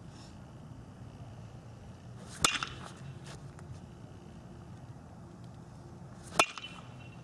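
Metal baseball bat striking a ball twice, about four seconds apart: each hit is a sharp ping with a short ring.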